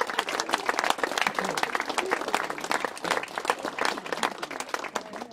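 An audience applauding, a dense patter of many hands clapping with a few voices among it, easing off near the end.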